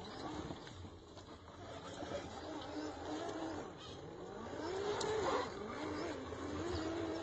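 Austar SCX10 II clone RC crawler's electric motor and gear drive whining as it crawls over rocks. The pitch wavers with the throttle, rises to its loudest about five seconds in, then drops back to a steady whine.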